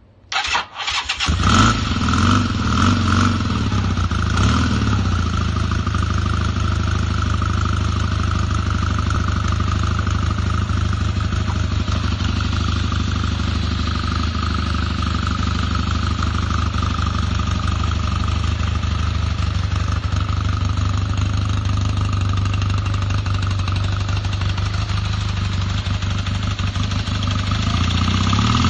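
1986 Honda Rebel's air-cooled parallel-twin engine on a cold start: the electric starter cranks for about a second, the engine catches and runs unevenly for a few seconds, then settles into a steady idle. Right at the end the revs begin to climb.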